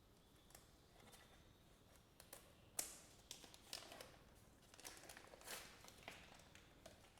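Faint handling sounds of a kitchen carving knife being picked up and shown: soft rustles and scattered light clicks, the sharpest click just before three seconds in.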